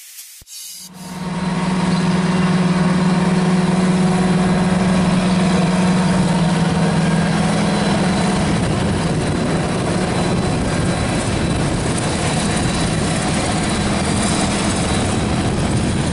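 Claas Jaguar 970 forage harvester running in the field, a steady diesel engine noise with a strong low hum. It comes in about a second in and the hum eases a little about halfway through.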